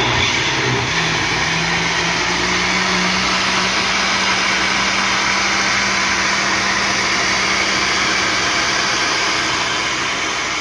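Countertop blender running at full speed, blending a batter of fresh corn kernels, eggs, milk, flour and condensed milk. Its motor hum climbs in pitch over the first couple of seconds, then holds steady.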